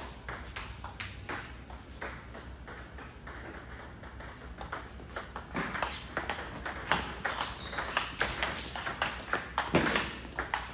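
Table tennis rally: a celluloid-type ball clicking off rackets and table in quick alternation. A few scattered taps come first, then the exchange picks up pace and gets louder from about halfway in.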